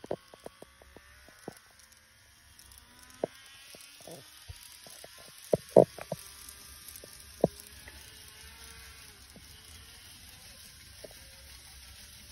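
Model train of a JR West 225 series 100 subseries running on its track: a faint steady hum and rolling hiss, with scattered sharp clicks and knocks, the loudest two close together about five and a half seconds in.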